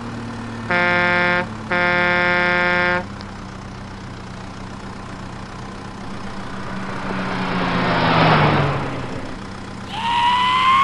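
Truck engine running steadily, with two long truck horn blasts about a second in. Later a rushing swell builds and fades as the engine note drops, as of a truck passing, and near the end an engine rev rises in pitch.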